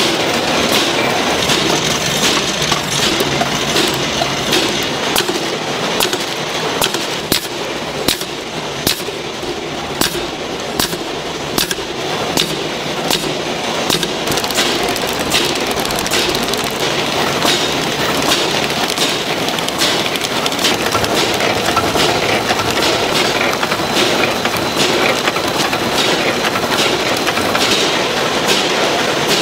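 Instant-noodle packaging line machinery running: a steady mechanical din from the film-fed wrapping machine and conveyors, with regular sharp clicks about every two-thirds of a second through the first half.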